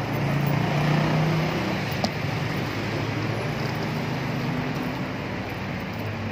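Busy street traffic running steadily, with a low hum of engines under a constant wash of road noise, and one sharp click about two seconds in.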